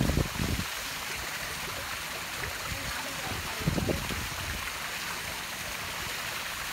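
Steady rushing of sea water, with two brief low thumps, one at the start and one about four seconds in.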